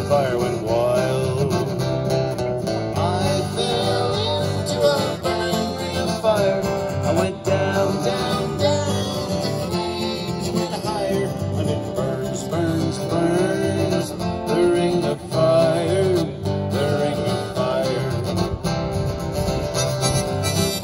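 Live country band: an electric guitar and two acoustic guitars strumming along, with singing.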